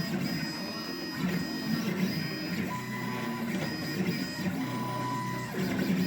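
Desktop CNC machine's stepper motors running, their whine jumping between a few steady pitches as moves start, stop and change speed.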